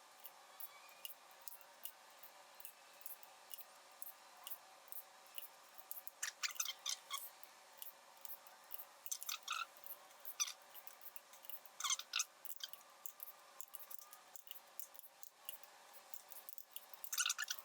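Hand ratchet and torque wrench clicking in short bursts as the head bolts of a Toyota 22RE engine are tightened.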